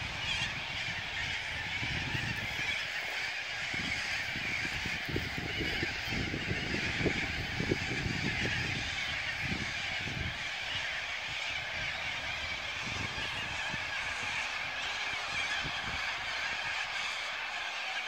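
A huge flock of corellas screeching all at once, a dense, unbroken din of overlapping calls from thousands of birds gathering at their evening roost.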